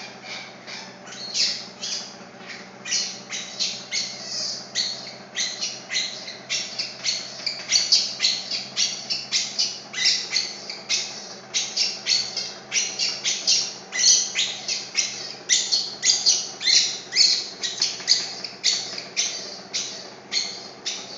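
Baby monkey crying: short, high-pitched squealing calls repeated about twice a second, over a steady low hum.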